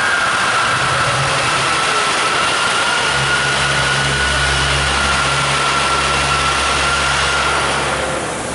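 Steady loud hiss of the show's fire and steam jets, with a faint held high tone that slowly sinks. A low steady rumble joins about three seconds in and fades out near the end.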